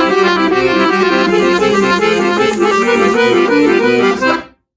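Accordion playing a quick, bouncy tune of short notes, then cutting off suddenly about four and a half seconds in.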